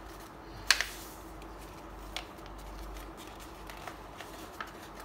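A sheet of squared notebook paper being folded and creased by hand into a paper airplane: scattered paper crackles and rustles, with one sharp crackle about a second in that is the loudest sound.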